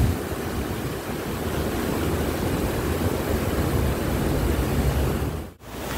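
Wind buffeting the phone's microphone: a steady rushing rumble that cuts out briefly near the end.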